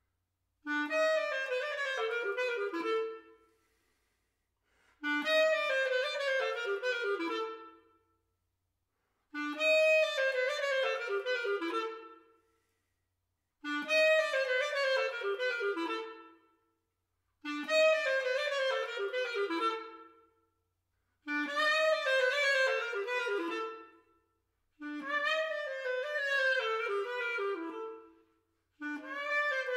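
Solo clarinet playing the opening of a fast (Vivo) movement of a contemporary piece. It plays eight quick phrases of rapid runs, each opened by a short low note and sinking lower toward its end, with a pause of about a second between them.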